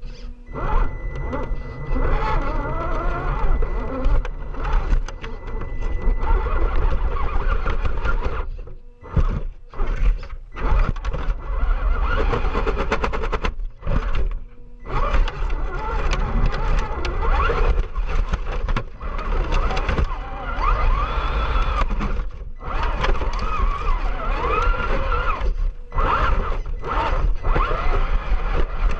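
Electric motor and gear drive of an Axial SCX10 II RC crawler whining as it crawls, the pitch rising and falling with the throttle. It cuts out briefly several times.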